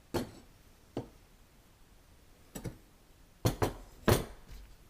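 Small welded stainless steel belt buckle pieces being handled and set down on a hard surface: several separate clinks and knocks, the loudest near the end.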